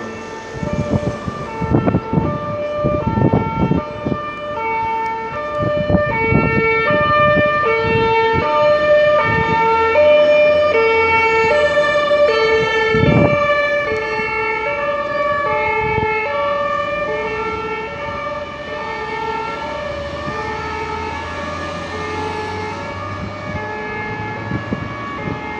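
Fire engines' two-tone sirens (German Martinshorn) sounding a steady high-low alternation, loudest about ten seconds in and then slowly fading as the vehicles move away. Several sharp knocks come in the first few seconds, and another about thirteen seconds in.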